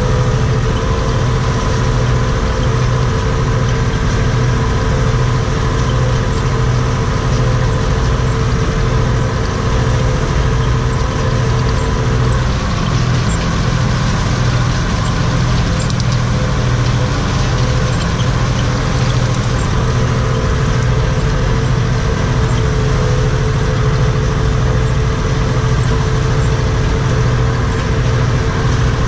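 Steyr 964 Turbo tractor's turbo diesel engine running steadily, heard from inside the cab as it pulls a rotary rake. Its note changes slightly partway through.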